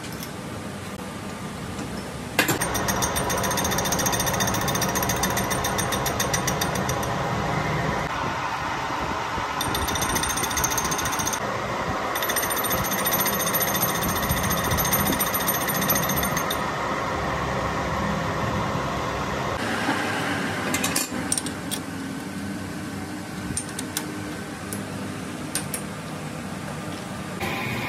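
Metal lathe taking a cut on a cast iron truck engine piston: a couple of seconds in the cutting tool bites and a loud, rapid, even rattle of the cut runs until about two-thirds through. Then the cutting stops and a few sharp metal clicks follow as the tool post is handled.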